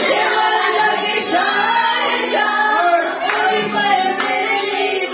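A song sung by several voices together, with the sung notes held and bending in pitch.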